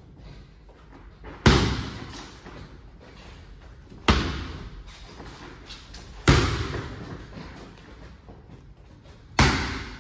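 Boxing gloves striking focus mitts four times: single hooks a couple of seconds apart, each a sharp smack trailing off in the hall's echo.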